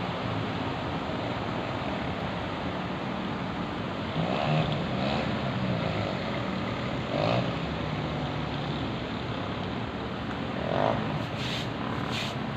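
Steady wash of road traffic on a street in heavy rain, with a few short pitched sounds in the middle and a quick run of short sharp sounds, about three a second, near the end.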